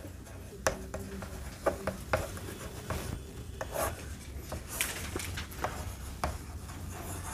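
Chalk writing on a blackboard: short taps and scratchy strokes as letters are formed, over a faint steady low hum.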